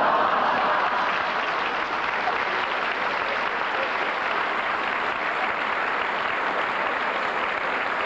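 Audience applauding with laughter: a dense, steady wash of clapping that swells up at the start and holds.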